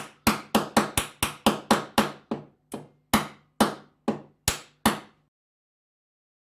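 Hammer striking repeatedly, about sixteen blows, about four a second at first and then slowing and spacing out, with a low ring under the blows; they stop a little after five seconds.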